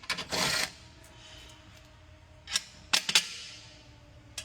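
A short hiss at the start, then a few sharp metallic clicks about two and a half to three seconds in, from wheel bolts, nuts and wheel parts being handled during reassembly of a three-piece racing wheel.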